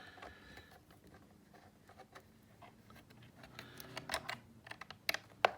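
Small screws being fitted into a QLS fork plate on a polymer holster. It makes faint scattered clicks and taps, with a few sharper clicks about four seconds in and again near the end.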